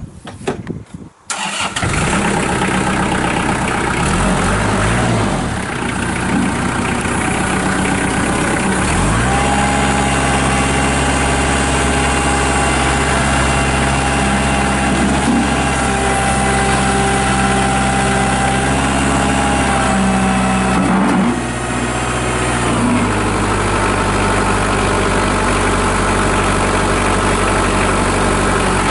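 Kubota L4740 compact tractor's diesel engine starting abruptly about a second in, then running steadily. Its engine speed rises about nine seconds in, with a thin steady whine on top while the front loader is raised and lowered. The engine speed drops again a couple of seconds later.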